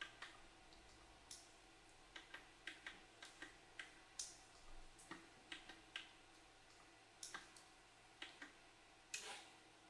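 Near silence broken by faint, sharp clicks and small taps at irregular intervals, about twenty of them, some in quick runs and the loudest near the end.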